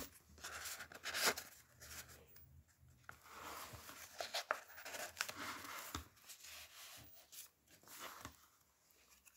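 Paper rustling and rubbing, on and off, as the pages, tags and cards of a handmade journal are handled and turned, with a few light taps.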